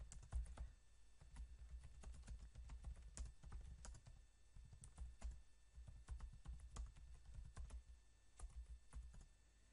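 Faint, irregular clicking of keys as a sentence is typed on a computer keyboard.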